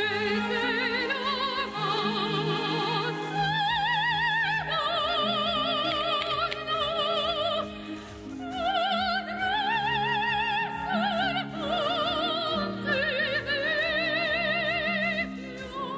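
Background music: operatic singing in a high voice with wide vibrato, holding long notes over a steady low accompaniment.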